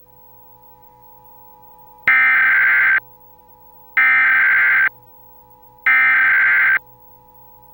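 Emergency Alert System SAME header: three loud bursts of digital data tones, each about a second long with about a second's pause between, the first about two seconds in. It carries the national Emergency Action Notification (EAN) test alert, and the steady two-tone attention signal starts right at the end.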